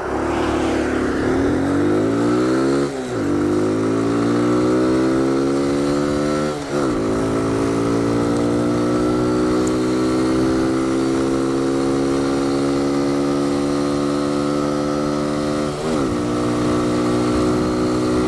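Kawasaki Z125 Pro's small single-cylinder four-stroke engine under hard acceleration, revs climbing through the gears with three upshifts, about 3, 7 and 16 seconds in, then holding high revs at full speed.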